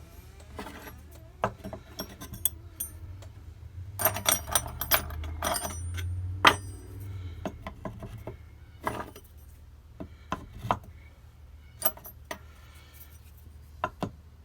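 Steel spade drill bits clinking against one another and tapping into the holes of a wooden drill bit holder as they are sorted and slotted in: irregular sharp metallic clinks, several in quick succession about four seconds in.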